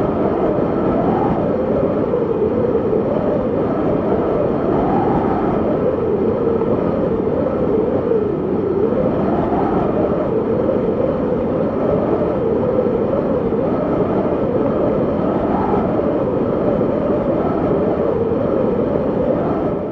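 Strong wind blowing without a break: a loud, steady rush with a tone that drifts up and down every few seconds.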